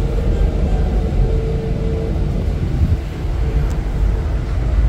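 Steady low rumble of the Ocean Express funicular train in motion, heard from inside the carriage.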